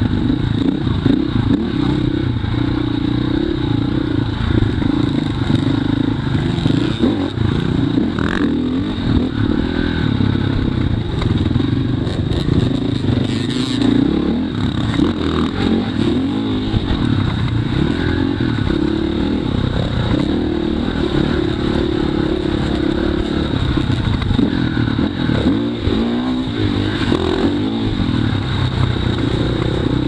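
Dirt bike engine running under the rider on a rough dirt track, its revs wavering up and down with the throttle.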